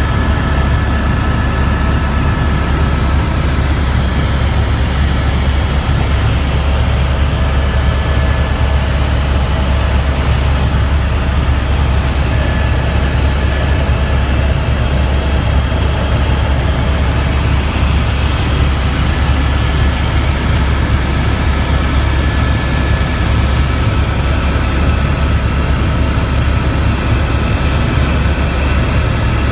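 Helicopter in flight: a loud, steady low drone of rotor and engine, with faint steady whining tones above it.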